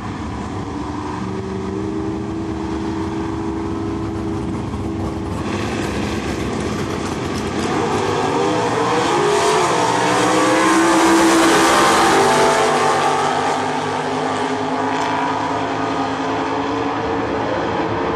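Two V8 Super Stock drag cars, one a first-generation Chevrolet Camaro, running at the start line and then accelerating hard down the strip, the engine pitch sweeping up and dropping back as they go through the gears. The sound builds to its loudest about eleven seconds in, then fades as the cars pull away down the track.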